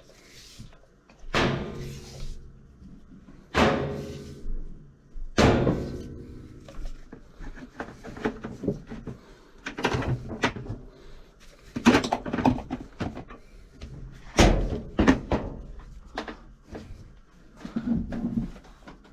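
Tools and buckets being set down and shifted on the top of a washing machine. Three loud knocks in the first six seconds each ring on briefly, followed by a run of quicker knocks and clatters.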